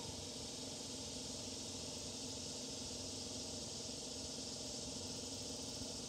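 Steady, even chorus of insects, a high continuous hiss, over a low steady drone.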